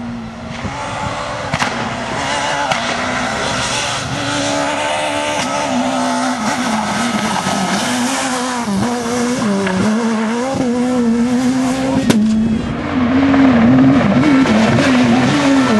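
S2000 rally cars, Škoda Fabia S2000s among them, driving flat out on a rally stage: the engine note rises and falls over and over with throttle and gear changes, with tyre noise beneath it. A single sharp crack comes about twelve seconds in, and the engines get louder near the end.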